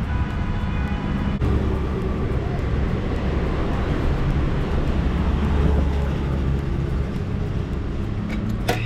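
Street traffic: a steady rumble of vehicle engines in a traffic jam, with a faint brief tone in the first second and a half.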